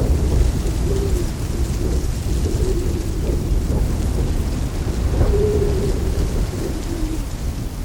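Outdoor wind buffeting the microphone in a heavy, gusting low rumble, with a few brief low wavering tones rising through it now and then.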